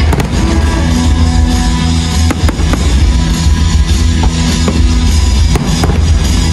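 Loud music playing, with aerial firework shells bursting as sharp bangs, a few about two and a half seconds in and a couple more near the end.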